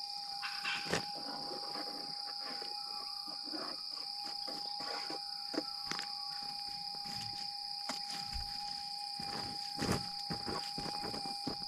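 Insects chirring steadily and high-pitched, over a thin steady tone, with scattered knocks and scrapes of digging. The louder knocks come about a second in and near the end.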